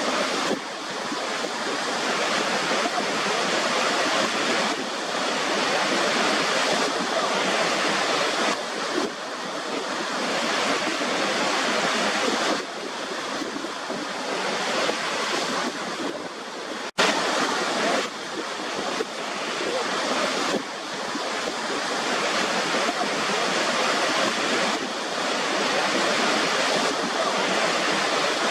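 Waterfall: water rushing in a steady roar, with slow swells in level and one brief dropout about two-thirds of the way through.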